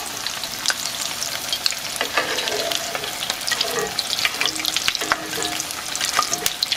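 Breaded potato cakes frying in hot canola oil in a cast-iron skillet: a steady sizzle full of small crackling pops.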